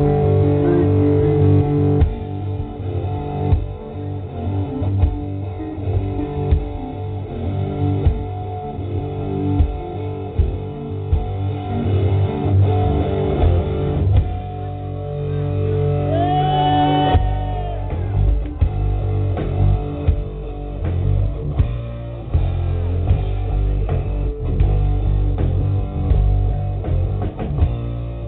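Live rock band playing, heard from the crowd: electric guitar, bass guitar and drum kit, with one held note that bends about halfway through.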